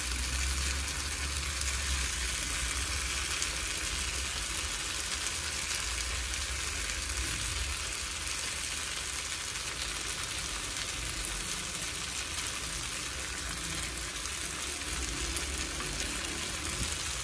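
Chopped sweet potato leaves, onions and peppers sizzling steadily in a nonstick frying pan, with a low hum underneath.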